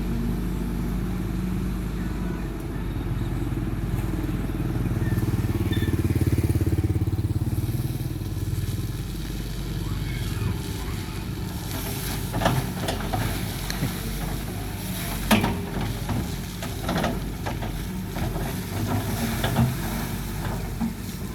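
Hydraulic excavator's diesel engine running steadily, getting louder for a few seconds about a quarter of the way in, with several sharp knocks in the second half.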